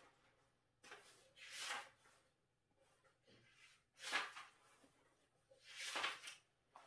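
Pages of a thick textbook being turned by hand: three short, faint papery swishes about two seconds apart.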